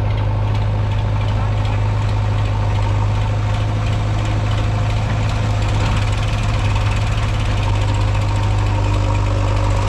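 Diesel engines of a tractor and a backhoe loader running hard under load as they try to move a stuck trolley out of mud. The sound is a steady low drone.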